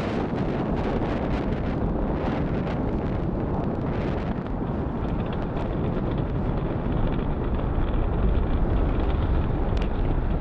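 Falcon Heavy's 27 Merlin 1D first-stage engines at full thrust during ascent: a steady deep rumble with crackle.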